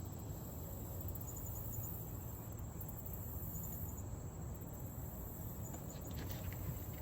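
Steady high-pitched insect chirring, like crickets, with short chirps repeating every couple of seconds, over a low, even rumble.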